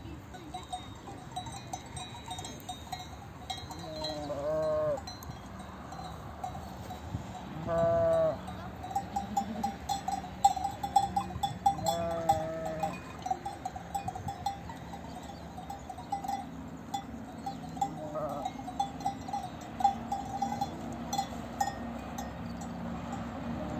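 Livestock neck bells clinking without a break as a flock moves, with three bleats at about four, eight and twelve seconds in.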